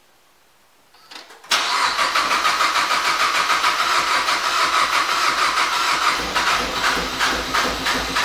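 Mazdaspeed 3's turbocharged 2.3 L four-cylinder being cranked by its starter, a loud, evenly pulsing churn that starts about a second and a half in and goes on for about seven seconds without the engine catching. The owner puts the failed start down to the fuel system not having been primed after the injector seals were replaced.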